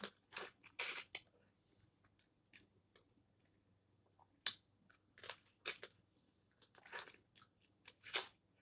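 Close-up eating sounds from snow crab legs: the meat sucked from the shell and chewed, in short, irregular bursts with pauses between.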